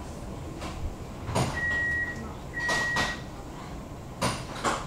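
Tram door warning signal: two steady high beeps about half a second each, with knocks of the doors moving and closing, the loudest two near the end.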